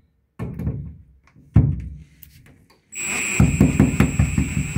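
Cordless impact driver driving a receptacle's mounting screw into a plastic electrical box. A couple of knocks come first. About three seconds in, the motor whirs up and the driver starts hammering in a fast, even rattle.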